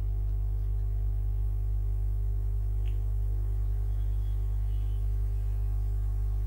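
Steady electrical mains hum, low and even, picked up by the recording chain, with a faint click about three seconds in.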